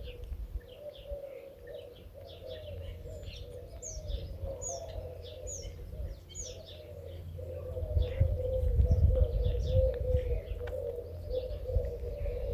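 Birdsong: many small birds chirping and twittering in quick high notes, over a dove cooing low and steadily. A low rumble swells in about two-thirds of the way through.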